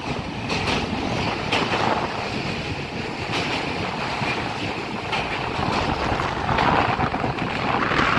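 Wind blowing across the microphone, a rushing noise with low rumbling buffets that swells about six and a half seconds in and again near the end.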